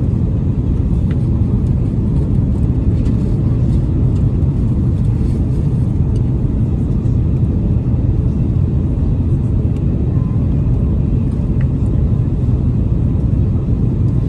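Airbus A330-300 cabin noise: a steady, loud low rumble of engines and rushing air, heard from a passenger seat.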